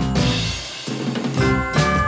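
Background music with drums and sustained pitched instrument notes.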